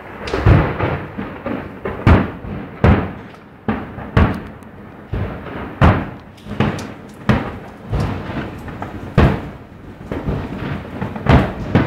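Aerial firework shells bursting, a dozen or so deep bangs at irregular intervals, each one trailing off before the next.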